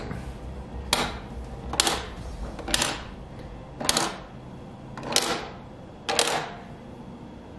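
Plastic Guess Who? character frames being flipped down one at a time on the game board. Six sharp plastic clacks come about a second apart.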